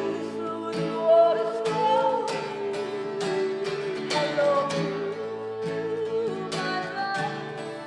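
Acoustic guitars strummed in a live song, with a wordless sung melody gliding over them.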